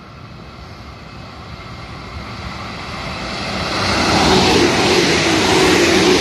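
A JR Central 313 series electric multiple unit approaching and passing through a station at speed. Its rush of wheels on rail grows steadily louder over the first four seconds, then stays loud with a steady hum as the cars go by.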